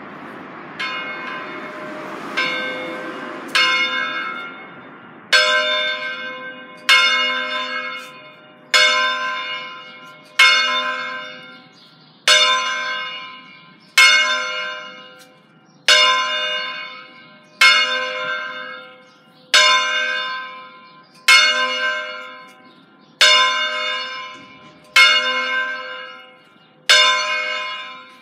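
The fifth bell of a five-bell Ambrosian-system ring, swung in distesa by its automatic ringing system, each stroke ringing on with a long decay. The strokes begin about a second in and grow louder over the first few seconds as the bell swings up to full height, then go on at a steady beat of about one stroke every 1.8 seconds.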